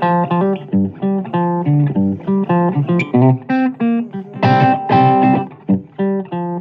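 Blues guitar playing an instrumental passage of short plucked notes in a steady rhythm, with a longer, fuller held chord about two-thirds of the way through.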